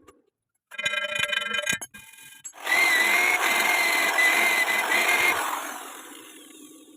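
Angle grinder working on steel, a loud steady grind with a high whine, then spinning down and fading near the end. A shorter burst of the same kind of power-tool sound comes just before it.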